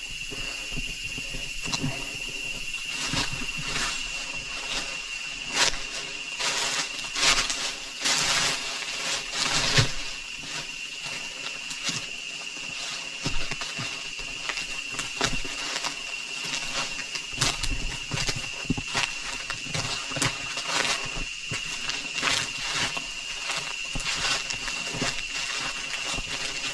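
Footsteps and rustling of people walking a jungle trail, irregular and uneven. A steady high-pitched drone runs behind them throughout.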